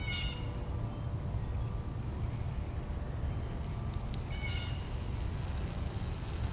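Two short, high animal calls, one at the start and one about four and a half seconds in, over a steady low rumble.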